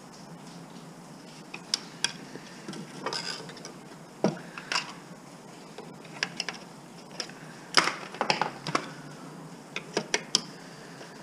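Scattered metallic clicks, clinks and clatters of hand tools and small metal parts being handled while a piece of scrap is stripped apart, with a loud cluster of clatters about eight seconds in.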